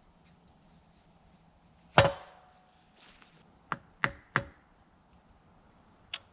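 Hammer striking steel while working out a snapped-off grease fitting on an excavator's dipper stick: one loud ringing blow about two seconds in, three quicker, lighter strikes about a second and a half later, and a faint click near the end.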